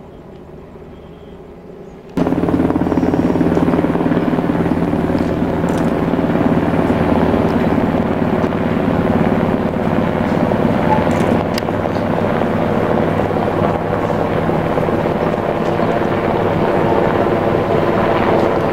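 UH-60 Black Hawk helicopter flying overhead, its rotor and turbine noise steady and loud. It cuts in abruptly about two seconds in, after a fainter steady hum.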